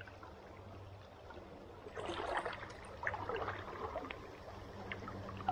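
River water running past a wading angler, with a run of irregular splashes and handling noises from about two seconds in as a hooked smallmouth bass is brought to hand.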